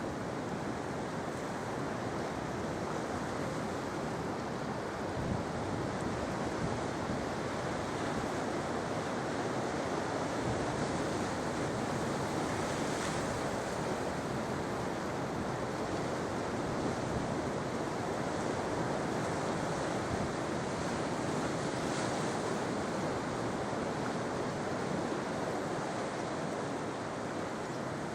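Sea surf washing onto the shore in a continuous rush, swelling gently now and then.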